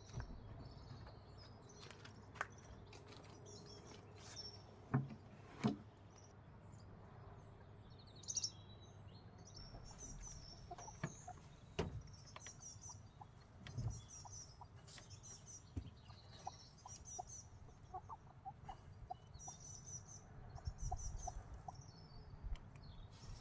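Hens clucking softly in short repeated notes, more often in the second half, with small birds chirping over them and a few sharp knocks about five and six seconds in.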